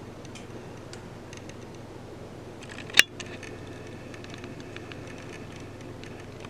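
A steady low hum with scattered faint ticks and light tapping, and one sharp click about three seconds in.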